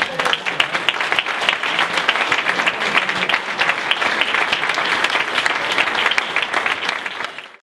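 Audience applauding: dense, steady clapping from many hands that fades out quickly near the end.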